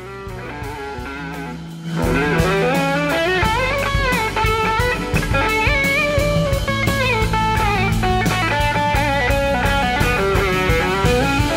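Electric slide guitar soloing on a Gibson SG with a live band and drum kit behind it. The notes glide up and down between pitches. The band comes in louder about two seconds in.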